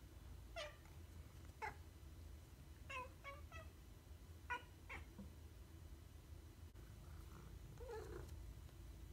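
Domestic cat chirping in a run of short, falling, high calls, some in quick twos and threes, then one lower, longer meow near the end: the excited chirping of a cat's hunting instinct at a bird it cannot reach.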